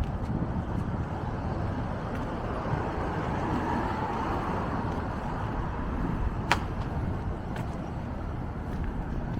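Steady city street traffic noise, with one sharp click about six and a half seconds in.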